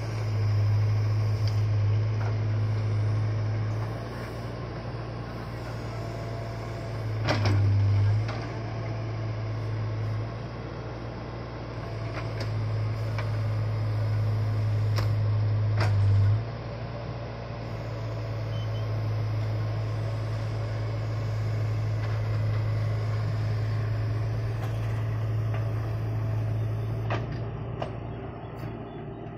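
Case 770EX backhoe loader's diesel engine running steadily while digging and loading soil, growing louder in several spells under load, with a few sharp clanks from the bucket and arm.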